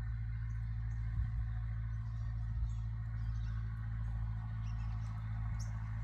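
Tractor engine running steadily nearby, a constant low drone, with a few faint high squeaky chirps over it.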